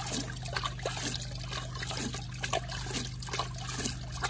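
Water splashing and trickling over a gold pan as muddy water is scooped by hand from a bucket and poured across it, in quick irregular splashes. A small engine runs steadily underneath as a low hum.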